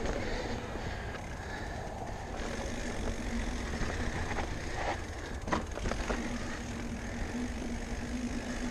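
Riding noise from a Specialized Levo electric mountain bike on a dirt singletrack: steady wind and tyre rumble, with sharp knocks and rattles as the bike hits bumps, the loudest about halfway through. A low steady hum comes in more strongly in the second half.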